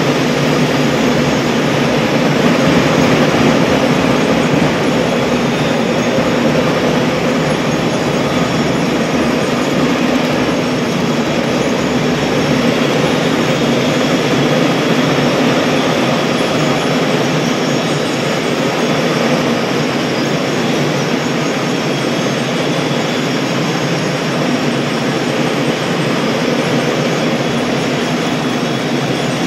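School drum and bugle corps playing, with marching drums and mallet glockenspiels, steady and loud throughout.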